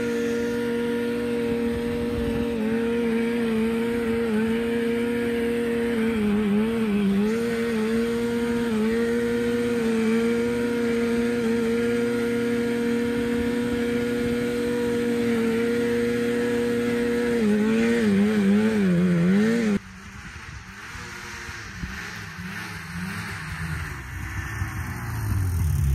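Two-stroke Suzuki-built engine of a 1987 Arctic Cat Cougar 500 snowmobile running steadily, its pitch dipping briefly a few times and wavering unevenly near the end. This is in keeping with the cutting-out that the owner thinks might be an ignition problem. About twenty seconds in, the sound drops off abruptly to a quieter engine note that rises toward the end.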